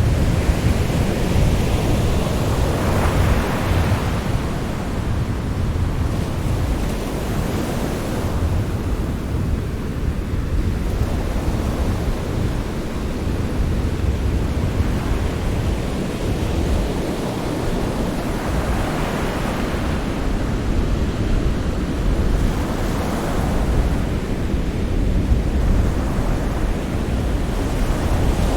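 Sea surf: a steady, deep rush of waves, with swells of brighter hiss as waves break every few seconds.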